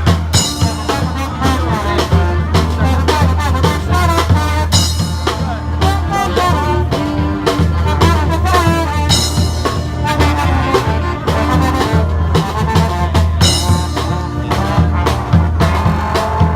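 Street brass band playing: horns over a steady low bass line and a drum beat, with a high crash about every four and a half seconds.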